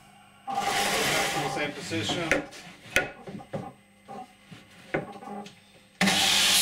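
Servo-driven stop fence carriage running along its rail for about two seconds, then a wooden board knocked and slid into place against the stop, with a sharp knock about three seconds in. The chop saw's motor starts suddenly near the end.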